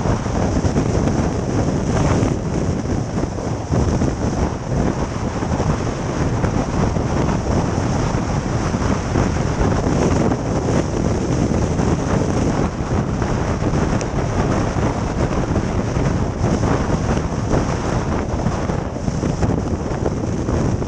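Strong wind and heavy rain mixed with ice during a thunderstorm, heard from a moving vehicle: a loud, dense rush of noise, with many small hits throughout.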